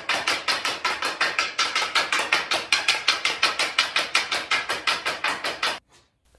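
Hockey stick blade knocking a small hard ball side to side on a concrete floor in rapid stickhandling, a quick steady run of taps about six or seven a second that stops suddenly near the end.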